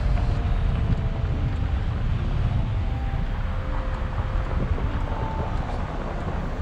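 Steady low rumble of a car driving slowly over a brick-paved street: tyre and road noise with the engine underneath.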